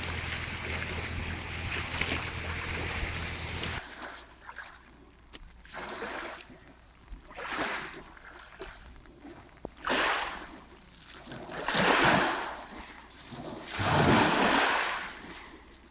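Lake Baikal waves washing onto the shore: surges that swell and fade about every two seconds, growing louder toward the end. Before them, a few seconds of steady rushing noise with a low hum stop abruptly.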